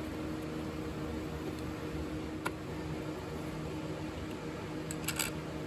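Light clicks of parts being handled as a new throttle position sensor is fitted to the throttle body: one click about halfway, then a quick cluster near the end, over a steady background hum.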